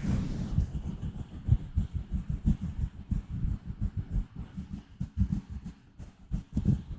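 Fingers gently scratching directly on a microphone, making a rapid, irregular run of low, dull scratching strokes that let up briefly about six seconds in.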